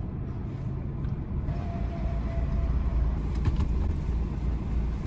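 Car engine running with a steady low rumble, heard from inside the cabin while waiting in a drive-thru line.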